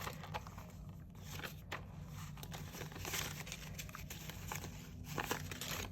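Paper banknotes being handled and shuffled, faint crinkling and rustling with scattered soft ticks.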